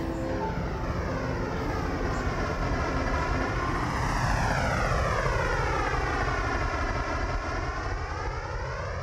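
Twin-engine jet airliner on landing approach, passing low overhead. Its jet noise seems to sweep down and back up in pitch as it goes over, and is loudest about halfway through.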